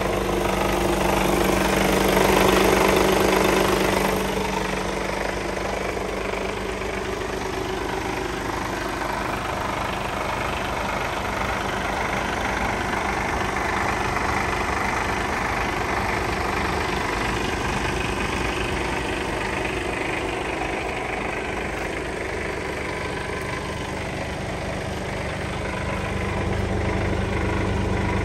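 Mercedes Actros 1840's 400 bhp Euro 6 diesel engine idling steadily. It is louder in the first few seconds and again near the end.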